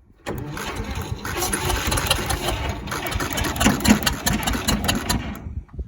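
Electric starter cranking the 1945 bulldozer's engine, starting suddenly and cutting off after about five seconds without the engine catching. The battery is too weak to turn it over fast enough to start.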